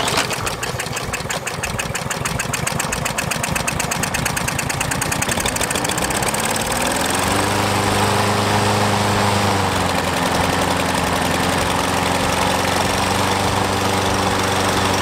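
Troy-Bilt walk-behind lawn mower's small engine catching and running after a hard start, uneven at first, then speeding up to a steady run about seven seconds in, with a brief dip in speed near the ten-second mark.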